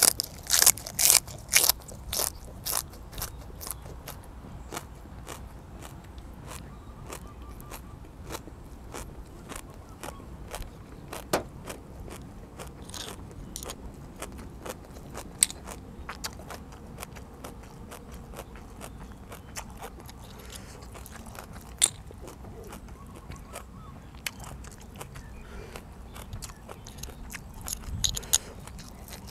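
A person chewing and crunching a meal of blanched cockles and raw vegetables close to the microphone. Loud crunchy bites come in the first few seconds and again near the end, with quieter chewing and a few sharp clicks in between.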